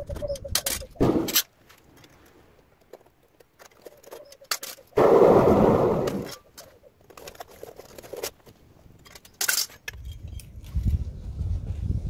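Sharp metallic clinks, knocks and scrapes from handling a propane melting furnace's lid and tongs. About five seconds in there is a loud rushing noise lasting about a second and a half, the burner's flame escaping as the hot furnace is opened.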